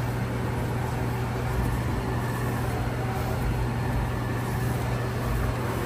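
A steady low hum with a hiss from running machinery, unchanging throughout.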